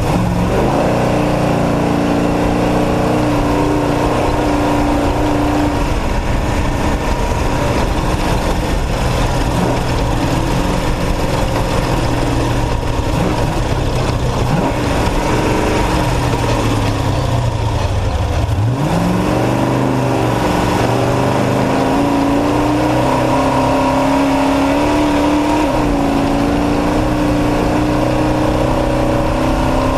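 Off-road race truck's engine running hard under load, its pitch rising and falling with throttle and gear changes. About two-thirds of the way through, the pitch drops sharply and then climbs back up as the truck accelerates again.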